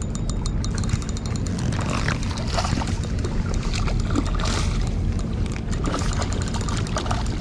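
Hooked mullet splashing and thrashing at the water surface while being played close in on a bolognese rod, in short bursts a few times, over a steady low rumble and a fast, even ticking.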